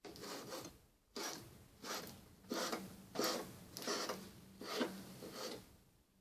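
Knife slicing pork leaf fat on a cutting board: a run of about eight short scraping strokes, roughly one every two-thirds of a second.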